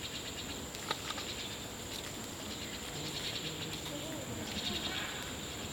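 Outdoor ambience dominated by a steady, high-pitched insect drone with faint pulsing chirps, and faint distant voices around the middle.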